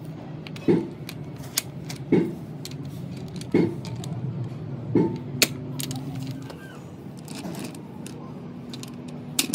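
Metal being struck in a workshop: four heavy knocks about every second and a half, with sharper metallic clicks and clinks, over a steady low machine hum.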